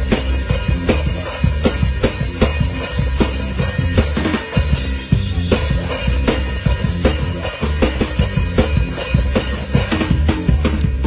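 Rock band playing live, heard close to the drum kit: kick drum, snare and cymbals loud and up front in a steady beat, with the bass and the rest of the band underneath.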